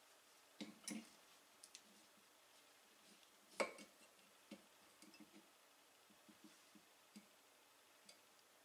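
Faint scattered clicks and light knocks from handling a measuring tool and parts against a car's brake servo and its pushrod. The loudest is one sharp knock about three and a half seconds in.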